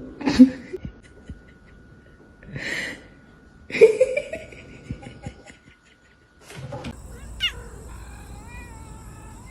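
A cat meowing: three short calls in the first half, then a longer, wavering meow near the end.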